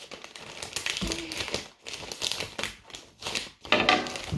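Amazon mailer packaging crinkling in irregular bursts as it is handled and cut open with a knife.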